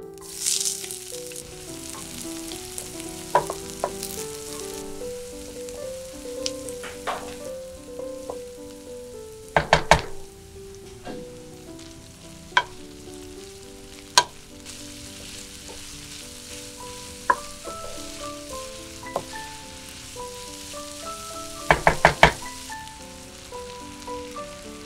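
Diced onion sizzling as it hits hot oil in a frying pan, then frying steadily as bacon strips are added and stirred with a wooden spoon. Sharp knocks against the pan come now and then, with a cluster about ten seconds in and another near the end, over light background music.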